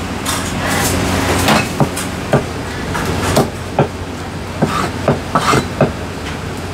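Heavy Chinese cleaver chopping a soy sauce chicken on a thick wooden chopping block: a string of about ten sharp, irregularly spaced chops, coming faster in the second half. A steady low hum runs underneath.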